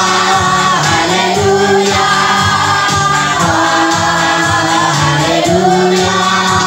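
Christian worship song: voices singing a sustained melody together over instrumental backing, with a man singing the lead into a handheld microphone.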